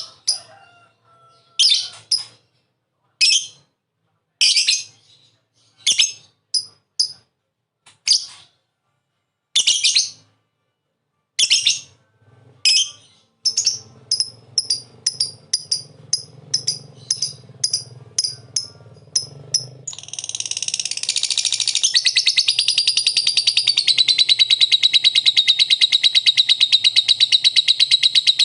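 Lovebird chirping: single sharp high chirps about a second apart, quickening into fast runs of chirps, then about twenty seconds in breaking into one long, unbroken, rapid high trill. This is the drawn-out 'ngekek' chatter that lovebird keepers train for.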